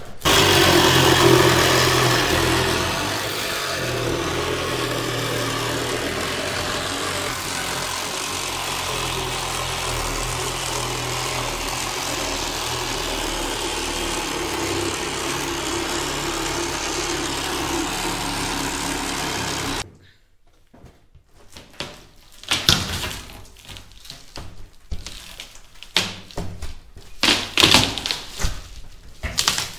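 Reciprocating saw running steadily as its blade cuts through the laminated windshield glass, stopping abruptly about twenty seconds in. After that come scattered knocks and clatters.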